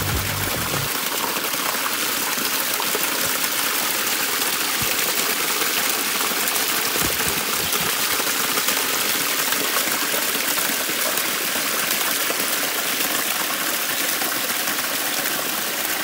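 Thin waterfall splashing down a rock face onto stones: a steady rush of falling water.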